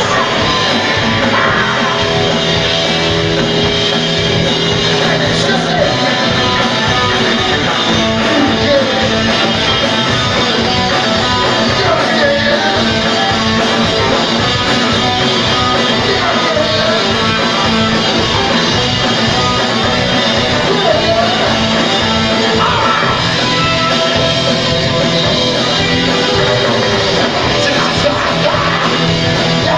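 Live punk rock band playing loud, with electric guitars, bass, a steady drum beat and a male lead singer.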